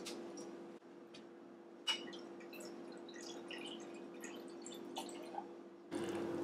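Freshly poured dark beer fizzing in a glass: scattered faint pops and ticks of the settling foam over a steady low hum, with one sharper click about two seconds in.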